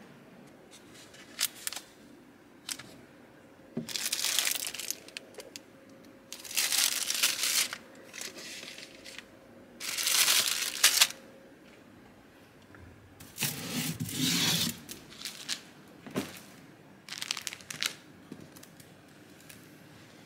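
Room amenities being handled by hand: crinkly rustling in about five bursts of a second or so, with quiet between.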